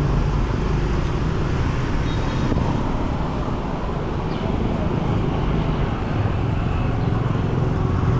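Steady city street traffic noise: the hum of passing motor vehicles with no single event standing out.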